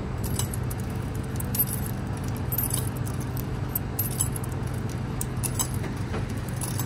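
Coins being fed one by one into a vending machine's coin slot, a short metallic clink about every second, over a steady low hum.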